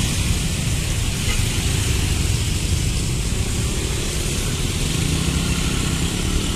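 Steady road traffic: cars and motorcycles driving over a wet road, a continuous rumble of engines and tyres with an even hiss above it.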